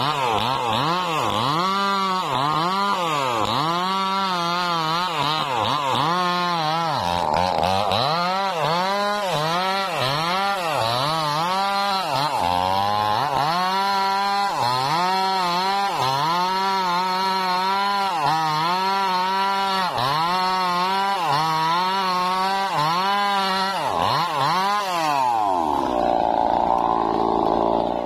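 Two-stroke chainsaw cutting through a felled sengon log. The engine pitch dips and climbs back again and again, about once a second or so, as the chain bites under load and frees up. It sinks lower near the end.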